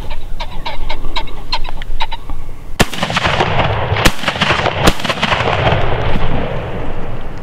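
A rooster pheasant cackles in a quick run of clucks for about the first two seconds. Then a shotgun fires three shots within about two seconds, each one rolling and echoing across the open field.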